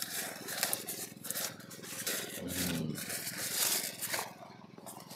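Irregular rustling and scraping, soft and crackly, with a short faint voice about halfway through.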